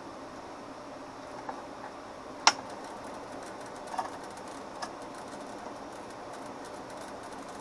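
Relays in the boat's newly powered wiring clicking: a few sharp clicks, the loudest about two and a half seconds in, over a steady background hiss.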